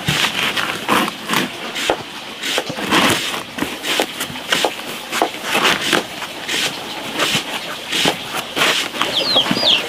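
Rustling and light knocking as a padded liner is pressed and fitted by hand into a bamboo pet bed frame. A bird chirps rapidly near the end.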